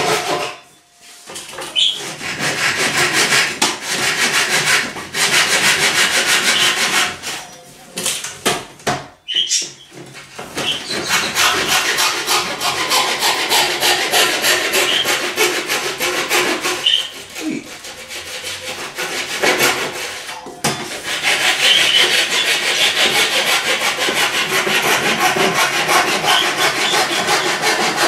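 Hand saw cutting through a chipboard cabinet panel, fast back-and-forth strokes in three long spells with short pauses between.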